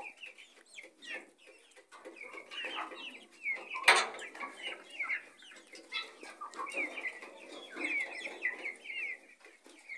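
Chickens clucking and calling, many short overlapping calls one after another, with a single sharp click about four seconds in.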